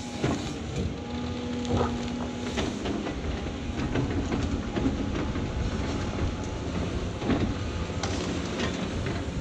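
Caterpillar 349F excavator's C13 diesel engine and hydraulics working under load as the bucket digs into the ground at a stump, with a steady whine over the rumble and scattered knocks and clanks.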